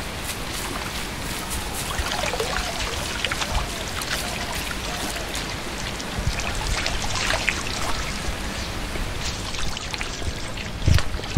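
Laundry being washed by hand in a wooden washtub: water splashing and sloshing with scattered drips, and a thump near the end.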